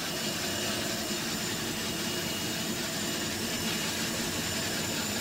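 Steady rumble and hiss inside the cab of an SNCF 141 R steam locomotive rolling along while its air brakes are applied.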